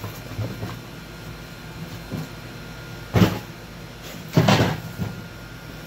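Two brief scuffing knocks against the phone, the second longer, as a long-haired dog's fur brushes over it.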